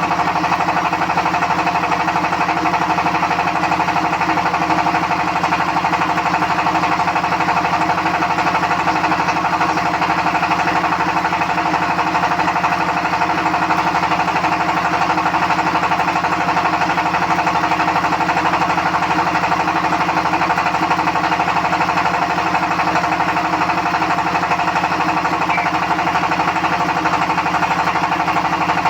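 A machine running steadily: a constant engine-like drone with a fast, fine rattle that does not change.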